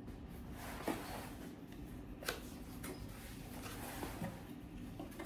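Cardboard product box being opened and its packaging handled: quiet rustling with a few short, soft knocks, the clearest about a second in and again just over two seconds in.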